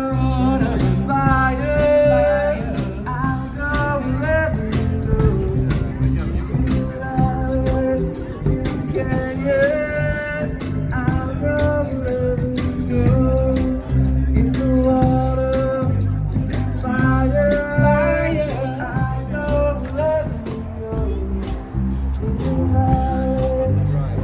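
Live band playing a rock and roll song: a singer over guitar, bass and drums.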